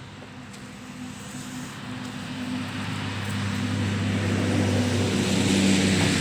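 A motor vehicle's engine running steadily while the vehicle drives along, with road and wind noise, growing steadily louder.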